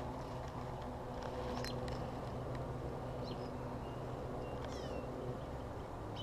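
Birds calling in the riverside trees: scattered short, high chirps and a couple of quick falling calls about five seconds in. Under them runs a steady low hum.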